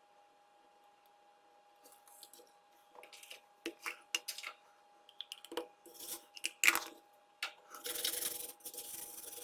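Near silence for a couple of seconds, then a run of small sharp clicks, taps and scrapes of hand tools and probes handled on a workbench, one loud click among them. A hissy rustle closes the stretch.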